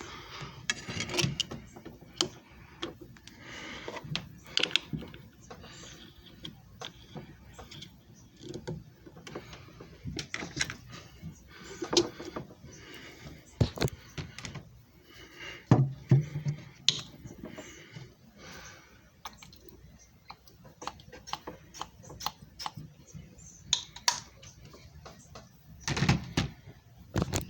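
Irregular clicks, knocks and rustling of objects being handled by hand, with sharper knocks about 12, 16 and 26 seconds in.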